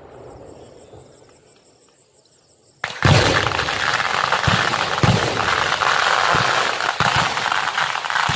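Fireworks: the echoing tail of a bang fades out, then about three seconds in a ground display ignites all at once into a loud, dense crackling hiss with a string of low thumps under it as shells go up.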